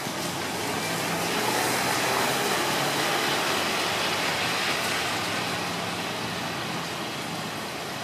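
A car passing on wet pavement: tyre hiss swells about a second in, holds for a few seconds, then eases off over a low engine hum.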